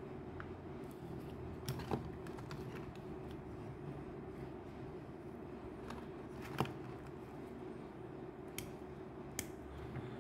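Scattered light clicks and taps of plastic candy-lipstick tubes being handled and set into a cardboard display box, the sharpest about two seconds in and again about six and a half seconds in, over a steady low hum.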